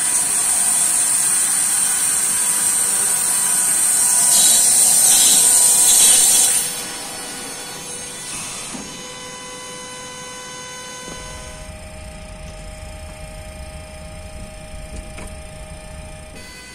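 Loud steady hydraulic hiss while the main landing gear of a Boeing 737-800 swings on jacks. The hiss cuts back sharply about six and a half seconds in, leaving a quieter steady hum with faint whining tones; a deeper hum joins around eleven seconds in.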